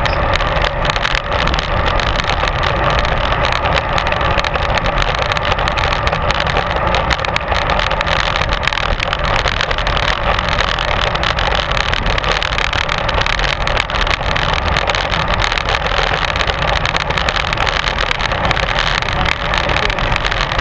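Steady rush of wind and road noise on a road bike's mounted camera, riding at race speed in a group of cyclists.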